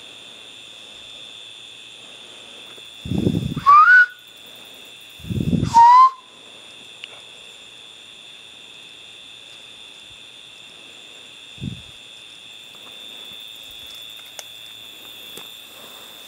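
Two loud, short whistles about two seconds apart, each rising in pitch and led by a low rush of air. Underneath, a steady high-pitched chorus of night insects.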